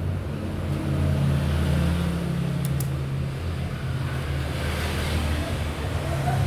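Steady low motor-vehicle engine rumble, with a couple of faint clicks near the middle.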